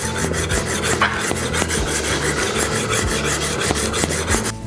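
Steel plane iron from a Bailey No. 5 hand plane being rubbed back and forth on an extra-coarse diamond sharpening stone, a rasping scrape repeating with quick, even strokes. The iron's back is being lapped down to get past a hump in its middle.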